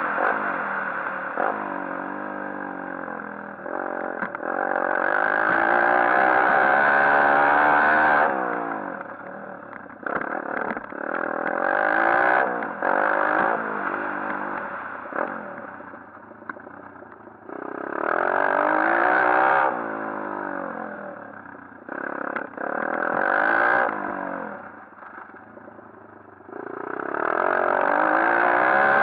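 A 140cc pit bike's single-cylinder four-stroke engine being ridden hard, revving up and chopping off again and again with the pitch climbing through the gears. It holds three long full-throttle pulls, about 5, 18 and 27 seconds in, with the throttle closing in between.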